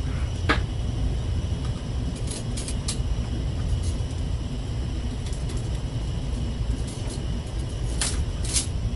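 Steady low rumble of a ship's cabin, with a few sharp clicks and taps as the metal rods and clamps of a small camera-mount rig are handled and fitted. The loudest click comes about half a second in, a few more around two to three seconds in, and two near the end.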